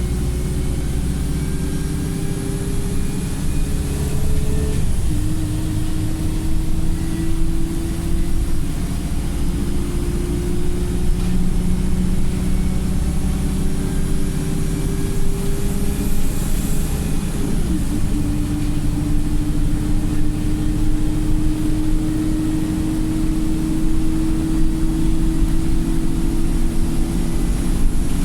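Wright StreetLite single-deck bus's engine and drivetrain running under load, heard from inside the bus: a whine climbs slowly in pitch as the bus gathers speed and drops at gear changes about five and seventeen seconds in. The bus is in limp mode and struggling to pull.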